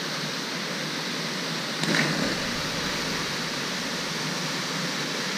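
Steady rush of a small waterfall pouring into a pool, with one brief splash about two seconds in as a person jumps into the water.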